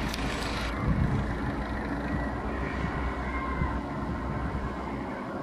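Paramotor engine and propeller running steadily overhead, a continuous engine drone.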